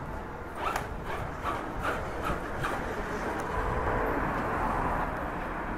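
Radio-controlled off-road buggy driving on concrete: a run of light clicks in the first half, then its tyres and drivetrain make a steady whir, louder as it passes close about three to five seconds in.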